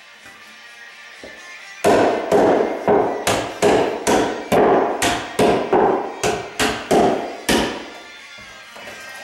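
Hammer nailing carpet tack strip down on a stair tread: a quick, even run of about seventeen blows, roughly three a second, starting about two seconds in and stopping about a second and a half before the end.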